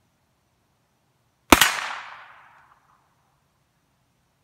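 A single shot from a Hi-Point 995TS 9mm pistol-calibre carbine about a second and a half in, its report echoing and fading away over about a second.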